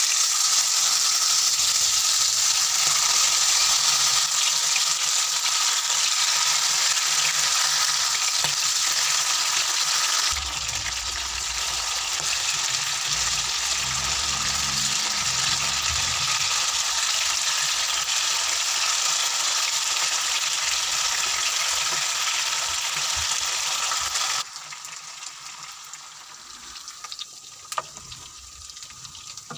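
Chicken pieces frying in hot oil, a loud steady sizzle. The sizzle cuts off abruptly about 24 seconds in, leaving a quieter background with a few light clicks.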